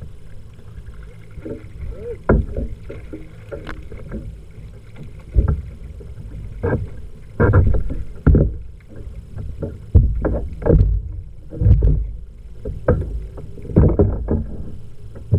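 Irregular thumps and knocks against a fishing kayak's hull and gear as a small fish is swung aboard and handled, over a steady low rumble of wind buffeting the microphone.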